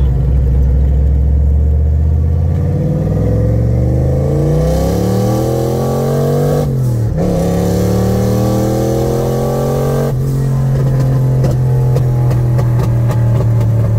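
Turbocharged 5.0-litre (302) V8 of a 1986 Ford Mustang accelerating hard, heard from inside the cabin: the revs climb, dip briefly at a gear change about seven seconds in, then pull on at a higher pitch. A rushing hiss rides over the engine under load and cuts off suddenly about ten seconds in.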